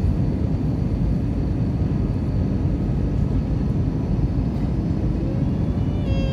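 Airliner cabin noise in flight, heard from inside the cabin: a steady low rumble of the engines and the air rushing past the fuselage.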